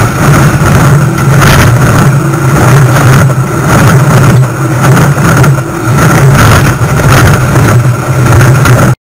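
Train rolling past right beside the microphone on the rail: a loud, steady rumble of steel wheels on the track, with repeated clacks as wheel sets go by. It cuts off suddenly near the end.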